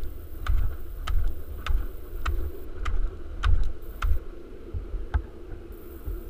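Wheels of a lie-down street luge board rolling fast down an asphalt road: a steady road roar with heavy low rumble, broken by sharp clicks with low thumps about twice a second.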